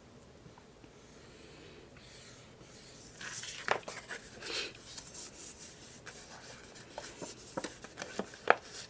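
Paper and card being handled and slid against each other: irregular rustling and rubbing with a few sharp clicks, starting about three seconds in after a near-quiet start.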